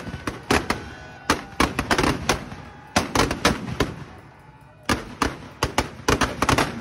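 Firecrackers packed inside burning Dussehra effigies going off in rapid, irregular bangs and crackles, with a lull of about a second near the middle.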